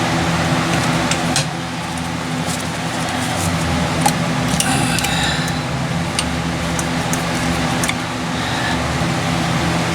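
Steady hum of a work light's cooling fan, with scattered clicks and light knocks, and a brief squeak about halfway through, as a coolant hose and its fittings are worked loose by hand.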